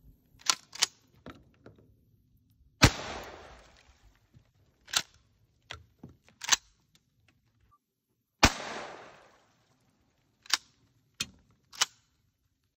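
Two shotgun blasts about five and a half seconds apart, each followed by a short echoing tail. Between them come sharp metallic clicks and clacks of a pump-action shotgun being worked, several in pairs.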